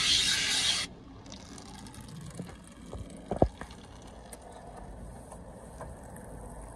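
Automatic tunnel car wash heard from inside the car's cabin: water and soap spraying on the windshield over muffled machinery, with a few knocks, the sharpest about three and a half seconds in. A louder hiss fills the first second and cuts off suddenly.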